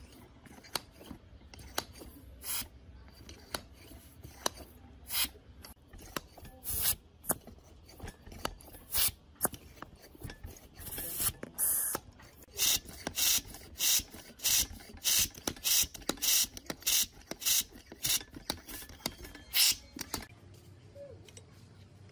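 A hand air foot pump's piston being worked in and out of its restored steel cylinder, each stroke a short hiss of air and rubbing. The strokes come irregularly at first, then steadily about one and a half times a second, and stop shortly before the end.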